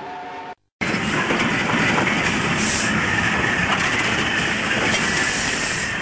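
Steam locomotive chuffing with the running noise of the train. The sound cuts out briefly just after the start, then comes back louder and stays steady, with short bursts of hiss.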